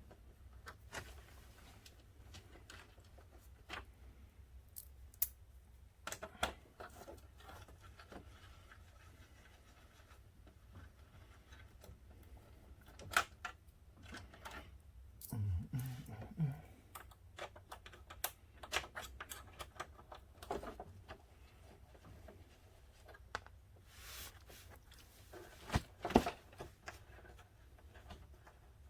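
Scattered clicks, taps and light rattles of hand tools, fasteners and plastic fairing panels being worked loose from a motorcycle, with a sharper knock about 26 seconds in.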